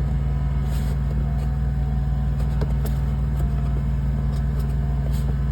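Steady low mechanical hum with faint, scattered clicks over it, as an Eberspächer Airtronic D2 diesel bunk heater starts up.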